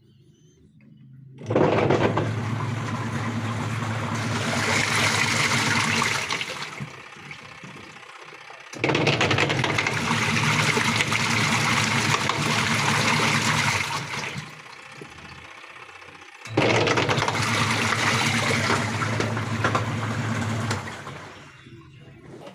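Polytron top-loading washing machine agitating: the motor hums while water churns in the tub, in three runs of about five seconds, each stopping briefly before the next starts.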